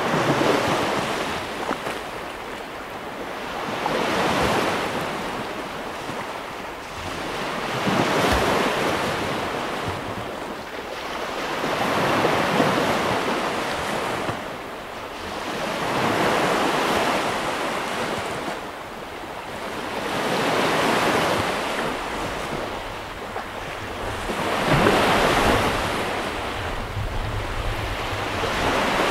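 Baltic Sea surf breaking on a sandy beach and washing up the sand, the sound swelling and fading about every four seconds.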